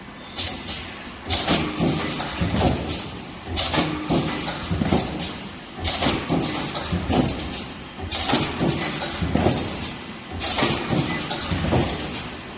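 Two-head projection welding machine for spin-on filter seats and seaming caps cycling: a sharp burst of noise with clatter repeats about every two seconds, five times, with lighter knocks and clunks between.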